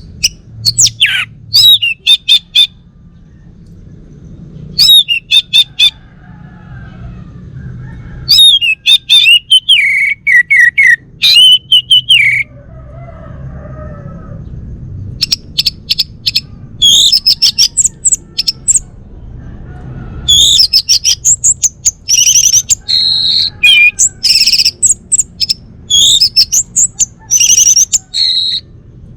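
Male orange-headed thrush singing: loud phrases of quick, high, varied notes in bursts with short pauses, the phrases coming almost without break from about halfway through.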